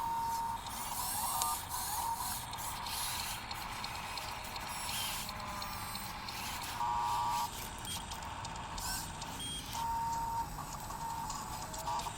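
Small electric motors and gearing of radio-controlled construction models whining in short on-off bursts, with clicking from the gears.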